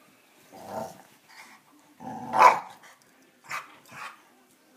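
Small dog growling and barking in about five short bursts, the loudest about halfway through.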